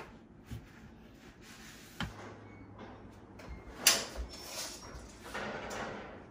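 A few sharp clicks and knocks of hand tools being handled, the loudest just before four seconds in, followed by a brief scraping rustle.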